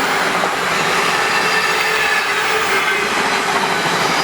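Freight train hauled by three Class 90 electric locomotives passing through at speed: a steady rush of wheels on rail.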